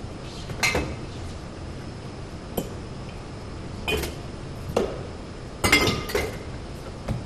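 Glass liquor bottles clinking and knocking against each other and the bar as they are handled and put away, in separate sharp clinks a second or so apart, a quick cluster of them near the middle, over a steady low background hum.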